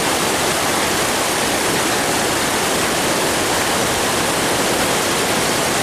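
Water pouring over a low spillway weir and rushing across rocks in a shallow creek: a steady, full rush of water.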